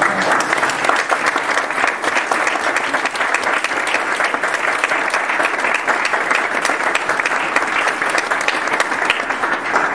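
Audience applauding, a dense patter of many hands clapping that starts at once and stops just before the end.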